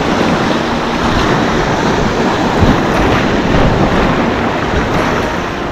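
Waves washing and breaking against the jetty rocks, mixed with wind buffeting the microphone: a steady, loud rush of noise.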